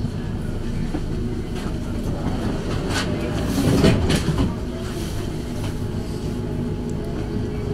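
Tram standing at a stop, its electrical equipment giving a steady hum, heard from inside the car. About halfway through there is a short, louder stretch of rustling and knocks.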